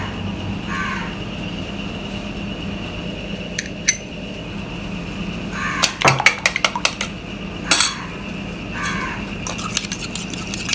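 A spoon clinking against a bowl and dishes while vanilla is measured into a pudding mixture: a couple of light taps, then a quick cluster of clinks around the middle and one more shortly after, over a steady background hum.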